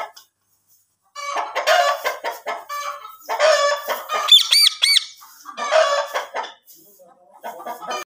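Indian ringneck parakeet calling in bouts of harsh, raspy squawks and chatter, starting about a second in, with a quick run of four ringing whistle notes a little past the middle.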